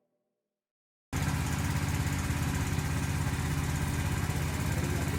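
Small petrol engine running steadily with a rapid pulsing beat, cutting in abruptly after about a second of silence.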